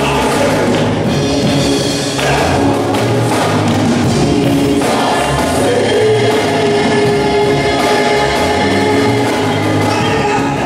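Gospel song performed live: a man sings into a handheld microphone over amplified backing music with steady bass notes.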